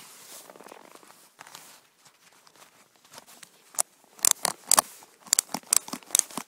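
Snowboard binding ratchet strap being cranked tight: a run of sharp clicks starting a little after halfway, coming in quick bunches, after a stretch of faint rustling.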